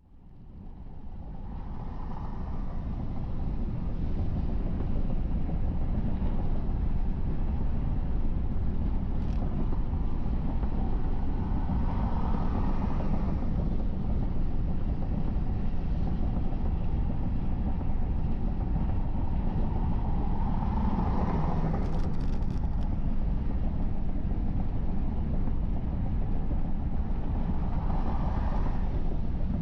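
Car driving at highway speed: a steady rumble of tyre, road and engine noise that fades in over the first few seconds, with a few brief swells along the way.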